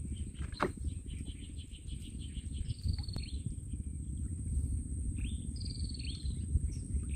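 Birds calling: a quick run of short chirps, then two high calls that fall in pitch, a few seconds apart. Under them runs a steady low rumble, and above them a thin constant high whine.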